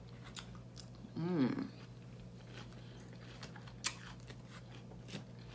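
Close-up chewing of crisp salad lettuce, with a short hummed "mm" about a second in. A few sharp clicks of a metal fork against a glass salad bowl come through, the loudest a little before four seconds in.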